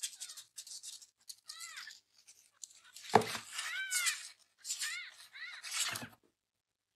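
Tiny kitten mewing in several short, high cries over the rustling and scraping of paper and cardboard as it scrambles in a box, with one sharp bump about three seconds in.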